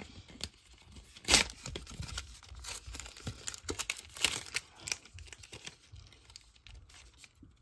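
Foil-lined Pokémon booster pack wrapper being torn open and crinkled by hand: irregular crackling and crinkling, with one sharp louder rip about a second in and another burst of crinkling around four seconds.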